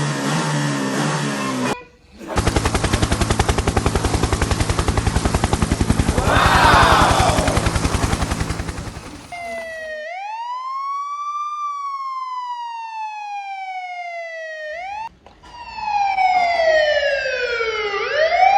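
A fast rattling run that lasts several seconds, then a wailing siren. The siren's pitch rises, falls slowly over several seconds, and swoops down and back up near the end.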